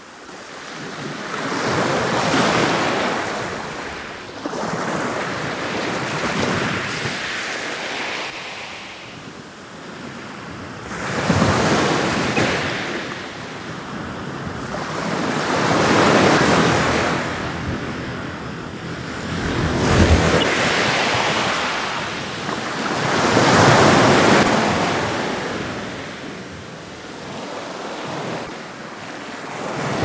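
Ocean surf: waves breaking and washing in, the rush rising and falling in swells every few seconds.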